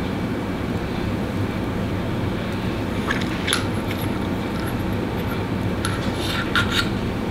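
Steady low room hum, like an air conditioner running. A few faint small clicks and rubs come about three seconds in and again near the end, from the lipstick being applied and the lips being pressed together.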